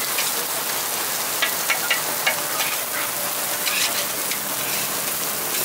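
Burger patties sizzling in oil on a flat steel griddle: a steady hiss with scattered sharp pops and ticks, most of them a second or two in and again near the end.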